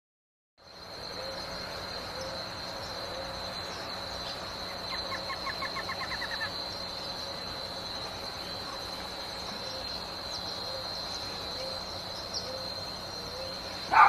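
Forest ambience: a steady high-pitched insect buzz, with a soft low hooting note repeated about once a second. About five seconds in, a bird gives a short, fast rattling trill of about a dozen quick notes.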